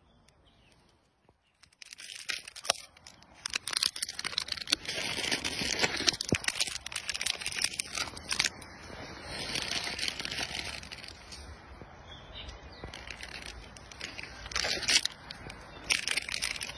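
Plastic food wrapping crinkling and tearing as a monkey handles and pulls at it: a run of rustles and crackles with sharper tears, starting about two seconds in.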